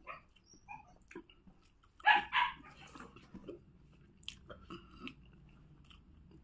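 Two short, loud barks close together about two seconds in, over faint chewing and the small wet sounds of rice and boiled pork being eaten by hand.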